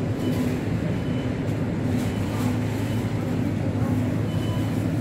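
Steady low mechanical hum of supermarket refrigeration, with a few faint steady tones over it.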